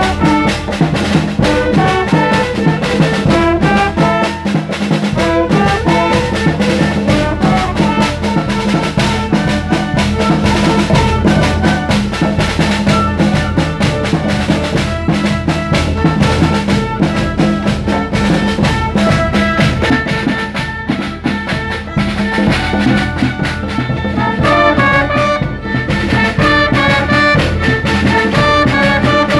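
Youth symphony orchestra playing a piece: violins, flutes and trumpets together under a conductor, with the brass standing out.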